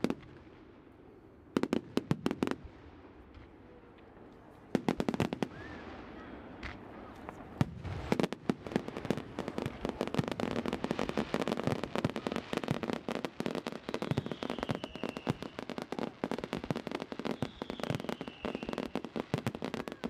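Fireworks display: rapid salvos of bangs and crackling from bursting aerial shells. It comes in short clusters at first, then becomes a dense, unbroken barrage from about eight seconds in.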